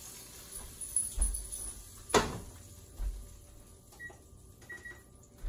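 Cookware being handled: a few knocks and thumps, the loudest a sharp clack about two seconds in. Near the end an electric range's control panel beeps twice, briefly.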